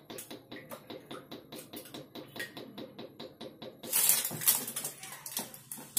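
Cooking oil glugging out of a large plastic can into an iron kadai, in a fast, even rhythm of about six glugs a second. The glugging stops about four seconds in, followed by a louder rustle of the plastic can being handled.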